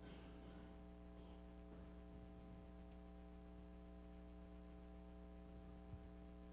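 Near silence: room tone with a steady electrical mains hum, and one faint soft thump near the end.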